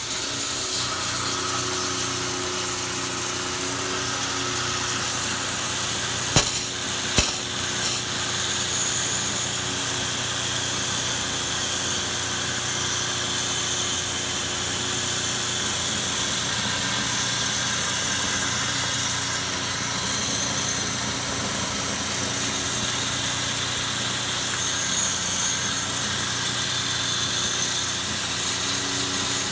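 Water-pressure cleaning machine's motor and pump running steadily with a high hiss, two sharp clicks cutting in about six and seven seconds in.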